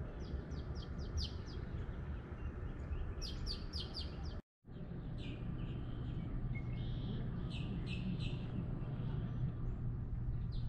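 Birds calling: runs of short, rapid chirps repeated in quick groups, over a steady low background rumble. The sound drops out for a moment a little before halfway through.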